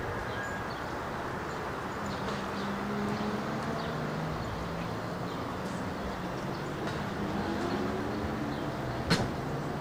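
Footsteps on open metal stair treads over steady traffic noise, with a vehicle engine hum that rises in pitch near the end. One sharp knock about nine seconds in is the loudest sound.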